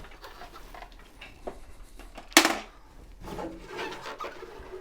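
Handling of a sewing machine's plastic cover: one sharp clack about halfway through, then rubbing and rustling as it is moved about.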